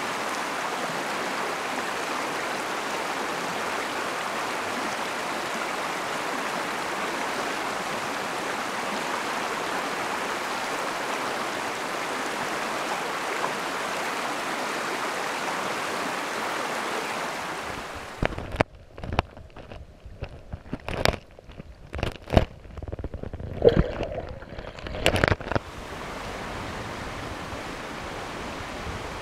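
Rocky mountain stream rushing steadily over a riffle. About two-thirds of the way through, the rush drops away to a quieter background broken by a string of sharp, close knocks and clatters.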